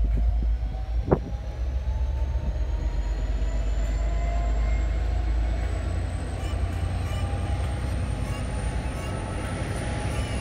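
V/Line passenger carriages rolling past, a steady heavy low rumble from the wheels on the rails with a faint whine that rises slowly in pitch. A single sharp knock about a second in.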